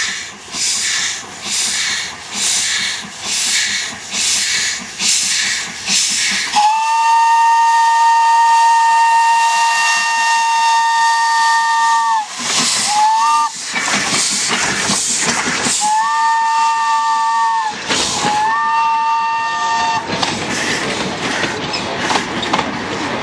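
Narrow-gauge steam locomotive chuffing past at about one and a half exhaust beats a second, then sounding its chime whistle: one long blast of about five seconds, two short toots, and two further blasts. After the whistle, the coaches and wagons rumble past.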